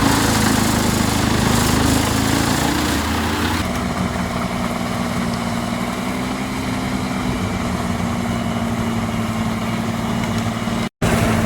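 Engine of a wood-processing machine running steadily. It is noisier for the first few seconds, then settles into a smoother hum, and cuts out for an instant near the end.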